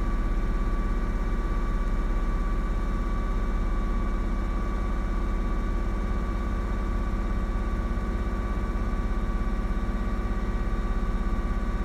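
2004 Ford Mustang's 3.8-litre V6 idling steadily with a low, even pulse, running on a faulty ignition coil pack that gives it an intermittent popping misfire.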